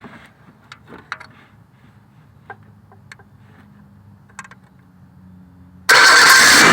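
Faint scattered clicks and taps of the painter's tool on metal as it is set across the starter solenoid posts, then, about six seconds in, the bridged solenoid sets off the starter and the 2005 Ford Explorer's 4.0 SOHC V6 suddenly starts and runs loudly.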